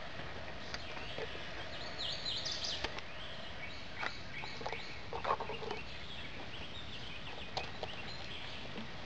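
Woodland birds chirping in short high calls over a steady background hiss, with a few soft knocks and rustles about halfway through as plastic water bottles are handled and set down on the sandy creek bank.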